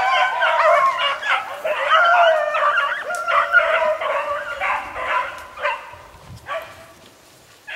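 A pack of beagles baying on a rabbit's track, several hound voices overlapping in a continuous chorus. The calls thin out and fade over the last two seconds.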